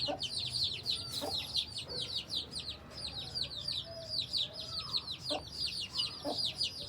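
Aseel chickens calling: a steady chorus of high, quick, falling peeps, several a second, with a few short lower calls now and then.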